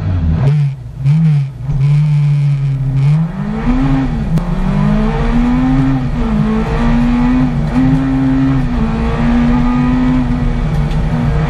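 Hillclimb race car's engine heard from inside the stripped cockpit, blipped twice near the start and held at steady revs. About three and a half seconds in it launches and accelerates hard up through the gears, the pitch climbing and then dropping at each upshift.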